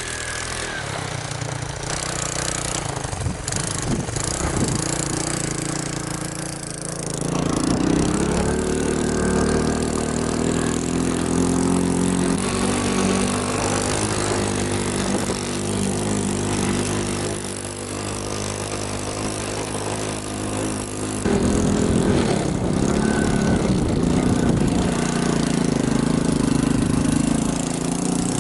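Small motorcycle engine running, its note steady for a stretch and then changing suddenly about three quarters of the way through as the speed varies.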